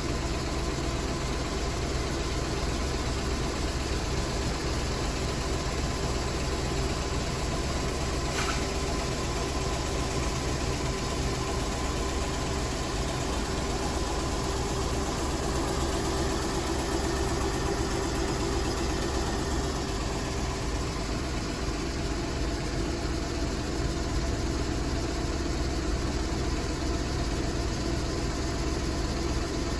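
A machine running steadily: an even, unbroken drone with a low hum and a steady tone.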